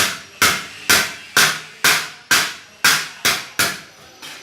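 Rubber mallet striking a plate in a steady run of sharp knocks, about two blows a second, each dying away quickly, with a short pause near the end; the blows are for levelling the plate's surface.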